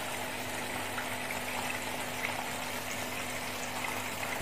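Small air-cooler water pump running with a steady hum while its hose pours a stream of water into a plastic tank, filling it.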